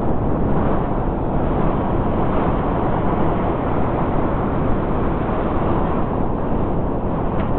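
Blizzard wind blowing hard and steadily, a dense low rushing roar without gusts standing out.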